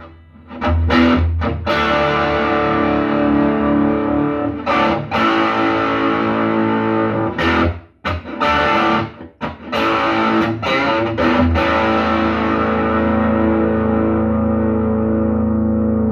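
Westminster SG electric guitar played through a JVM 800 with distortion: a run of strummed, overdriven chords broken by short stops. From about twelve seconds in, one last chord is left to ring out, its brightness slowly fading.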